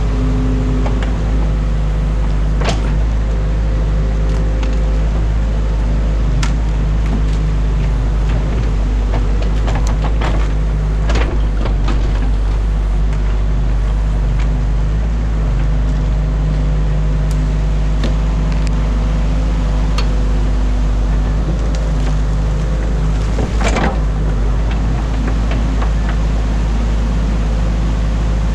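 Excavator's diesel engine running steadily under the rush of water pouring over a concrete weir, with a few sharp knocks and cracks as the machine works the beaver dam, a cluster of them about ten seconds in.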